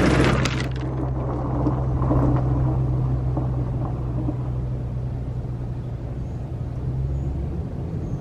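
A Ford-chassis motorhome's engine idling with a steady low hum. The hum drops away near the end.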